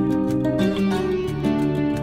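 Instrumental background music: a gentle tune of sustained notes that change every half second or so.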